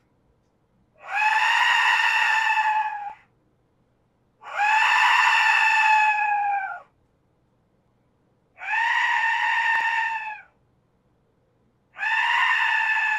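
3D-printed PETG Aztec death whistle blown four times, each blast a shrill scream of about two seconds that holds its pitch and dips slightly as it dies away. It is heard from about 20 feet away through a wall and stairs, where it sounds like screaming.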